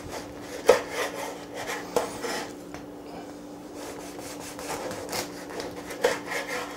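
Large kitchen knife sawing through a loaf of dark rye bread on a wooden cutting board: irregular rasping strokes across the hard crust, with a few short sharp ones as the blade goes through.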